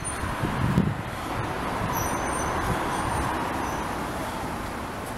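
Road traffic passing: the engine and tyre noise of a passing vehicle swells to a peak a couple of seconds in, then slowly fades.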